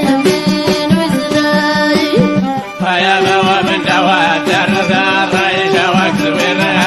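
Old Atlas Amazigh folk song: melody instruments and voice over a steady drum beat, the music getting fuller about three seconds in.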